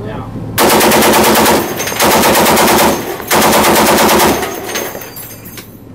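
M2 Browning .50-calibre heavy machine gun firing three bursts of rapid automatic fire, each about a second long, with short pauses between them.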